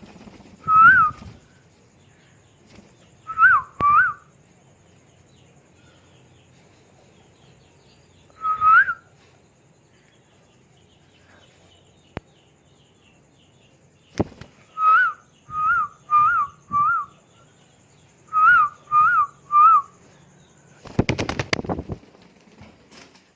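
Parrot whistling: short, identical rising-and-falling whistled notes, given singly or in quick runs of two to four with pauses between. Near the end comes a brief rattling burst.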